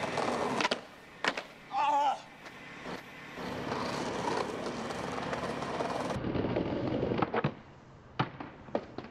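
Skateboard wheels rolling over brick pavement, with sharp clacks from the board. Near the end there is a snap of an ollie, then two hard smacks as the board lands. A brief warbling tone sounds about two seconds in.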